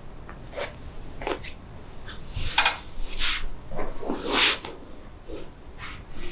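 A handful of short, noisy breaths and rustles from a person on a treatment table, about five in all. The longest and loudest is a hiss about four seconds in.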